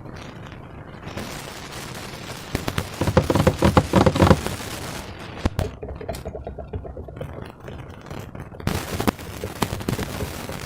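Slime being squished and worked by hand, with dense wet crackling and popping that swells to its loudest a few seconds in and flares again near the end.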